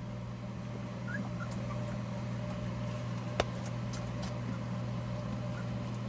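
Steady hum of an electric fan running beside a litter of young puppies, with a few faint puppy squeaks about a second in and one sharp click around the middle.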